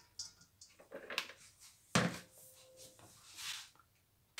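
Grated carrots rustling softly as they slide out of a plastic bowl into a stainless steel pan, with one sharp knock about two seconds in, followed by a short faint ring.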